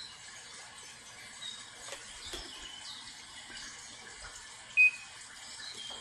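Steady low hiss, then a single short electronic beep about five seconds in: the Daikin air conditioner acknowledging a button press on its remote.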